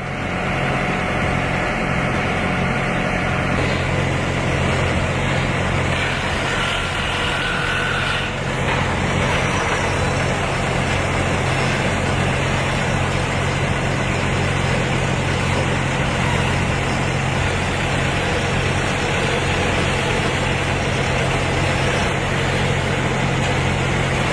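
A heavy engine running steadily at an even speed, with a constant low hum.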